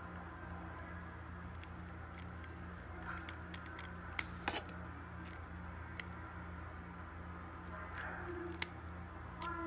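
Scattered small clicks and taps of tools and small phone parts being handled, bunched in the middle and near the end, over a steady low electrical hum.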